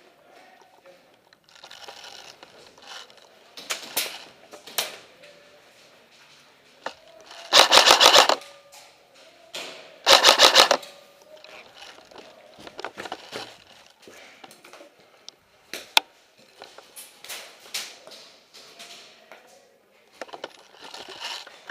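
Airsoft guns firing: scattered single shots and clacks, with two loud bursts of rapid automatic fire, each under a second, about eight and ten seconds in, and a sharp lone crack near sixteen seconds.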